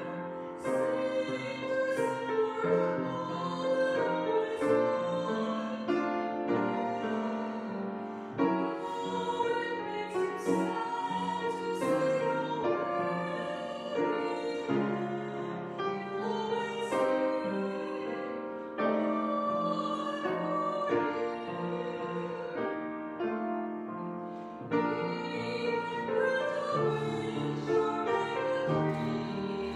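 Church organ playing a slow hymn-like piece in held chords that change every second or two.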